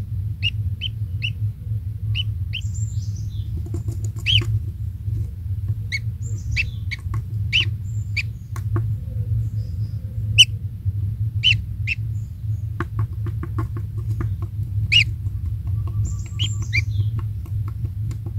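Kingfisher at its nest making short, sharp, high chirps, a quick run of about four a second at the start and then scattered chirps and squeaky calls. A steady low hum runs underneath.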